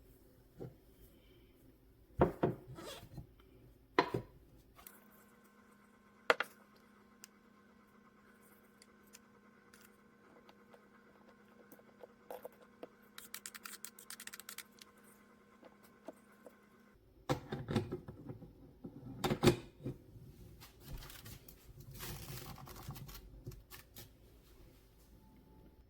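Scattered knocks and rustling of objects being handled, with a faint steady hum from about five seconds in until about seventeen seconds.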